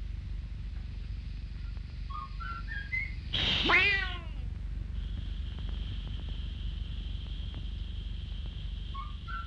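A few quick rising notes, then a loud cartoon kitten meow about three and a half seconds in. From about five seconds a steady high whistle, a steam radiator's valve hissing, runs on over the low hum of an old film soundtrack.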